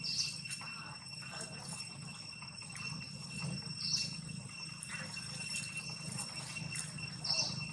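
Steady high-pitched insect drone, with a short higher chirp three times, a few seconds apart.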